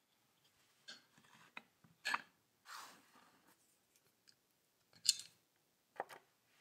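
Small metal parts being handled: a few short metallic clicks and snips, with a longer scraping sound about three seconds in.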